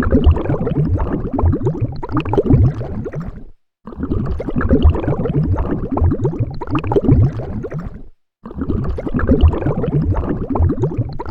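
Underwater bubbles: dense streams of bubbles gurgling and popping, heard from under the water. They come in bursts of three to four seconds, cut by brief silences twice.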